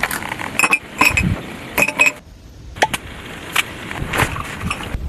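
A run of sharp clicks and light clinks, several with a brief ringing tone, with a short lull about two seconds in.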